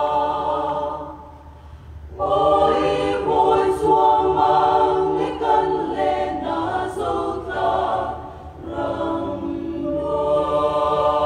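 Mixed choir of men and women singing a cappella in harmony. A held chord fades away near the start, the singing comes back in about two seconds in, dips again briefly about eight seconds in, and ends on a long sustained chord.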